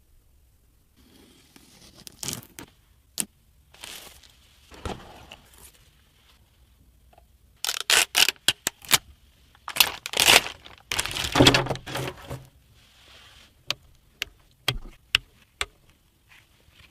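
Hands unpacking computer parts: packaging is torn and crinkled, with scrapes and sharp clicks. The loudest part is a dense stretch of tearing and rustling about ten seconds in, after a quick run of clicks.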